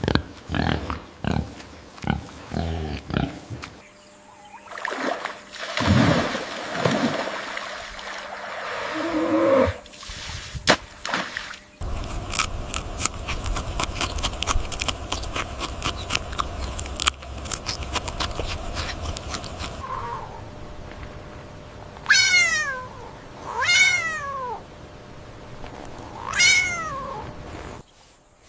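Assorted animal sounds and clicks, then a cat meowing three times near the end, each meow falling in pitch.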